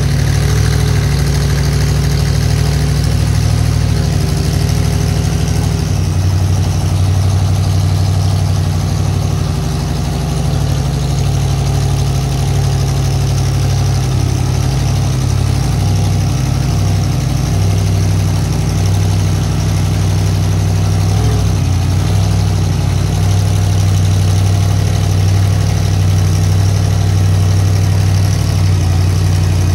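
Megalodon monster truck's engine idling loudly and steadily as the truck creeps and turns at low speed, with a brief rise and fall in revs about 21 seconds in.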